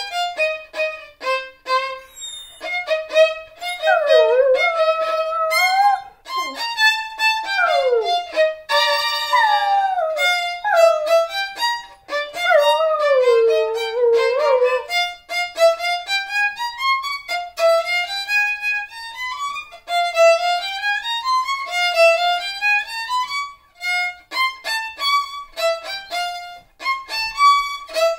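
Violin played with a Border Collie howling along, its voice sliding and wavering in pitch over the notes through roughly the first half. After that the violin carries on alone in rising runs of short notes.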